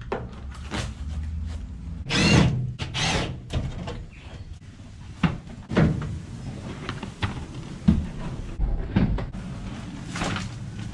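Heavy ribbed rubber floor mat being rolled up and hauled out of a van's cargo area: a couple of squeaks early, then scattered knocks and dull thumps as it is handled.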